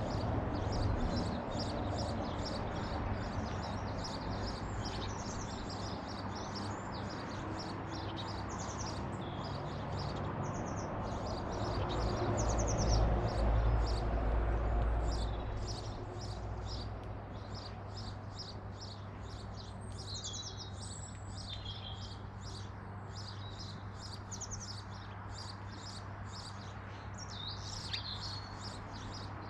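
Small garden birds chirping and singing, with many short, high calls and song phrases coming close together. Under them a low rumble swells and fades about halfway through.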